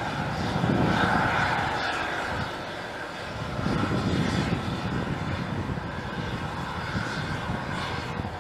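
Bell 429 helicopter running on the ground with its rotors turning: a steady high turbine whine over the rapid beat of the rotor blades. The sound swells about a second in and again around four seconds.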